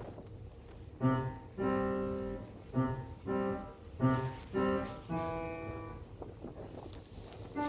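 Background music: a slow piano melody of single struck notes and chords, starting about a second in, over faint wind noise.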